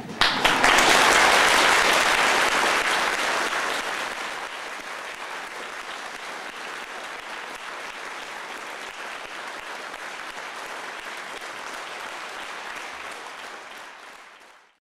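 Audience applauding: the clapping breaks out loud right away, eases after about two seconds, then carries on steadily until it stops abruptly near the end.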